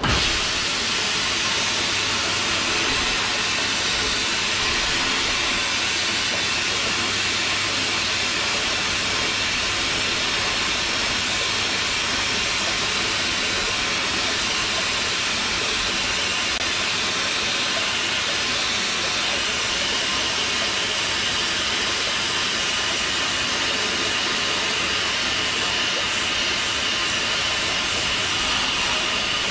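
Vapour-blasting gun spraying a compressed-air-driven slurry of water and glass bead inside a blast cabinet: a loud, steady hiss that cuts in abruptly at the start and runs without a break, turning slightly sharper after about twenty seconds.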